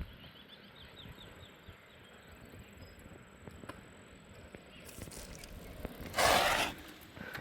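Quiet outdoor background noise, with a faint run of short chirps early on and a sudden loud burst of rustling noise lasting about half a second, about six seconds in.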